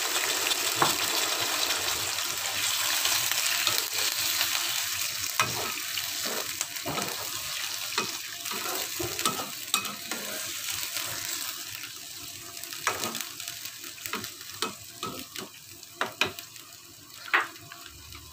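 Water and oil sizzling in a hot wok of tofu and tempeh, the sizzle dying down steadily as the water heats. A metal spatula stirs, scraping and knocking against the pan, the knocks standing out more in the second half.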